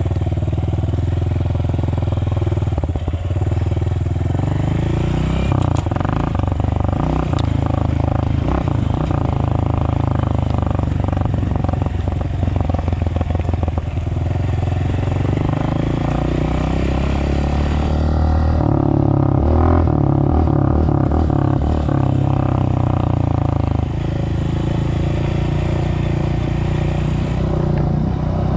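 Small off-road vehicle engine running in gear as it is ridden across a rough field, its pitch rising and falling with the throttle. Short knocks and rattles over the bumpy ground in the first half, and a louder, higher-revving stretch past the middle.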